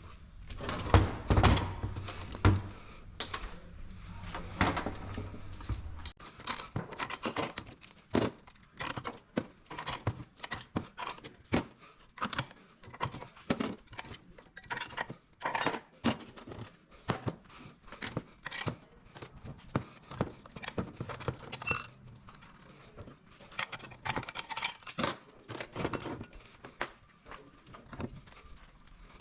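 Irregular metallic clinks, taps and knocks of hand tools against steel parts of a 48RE automatic transmission being taken apart. A low steady hum cuts off about six seconds in.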